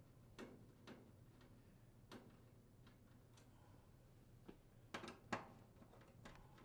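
Faint, scattered clicks and light taps of a Phillips screwdriver unthreading screws from a range's induction coil support panel, the loudest a few clicks close together about five seconds in.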